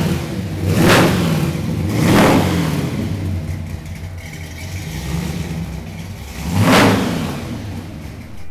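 Supercharged 355 cubic-inch Chevrolet small-block V8 with a 6-71 blower, heard at the tailpipes, idling between quick throttle blips. The revs rise and fall sharply about a second in, again a second later, and once more after a few seconds of idle.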